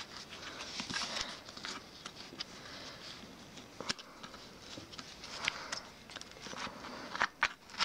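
Hands untwisting fuzzy pipe cleaners and handling a small loudspeaker on a thin clear plastic container lid: faint rustling and scratching with a few light clicks, the sharpest near the end.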